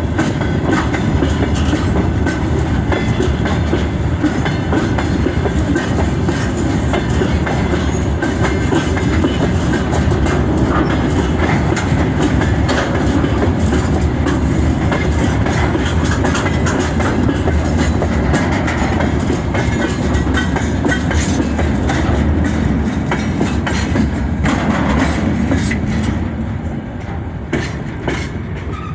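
Freight train cars rolling past on the track, their wheels clattering over the rail joints with a steady rumble. The sound fades away near the end.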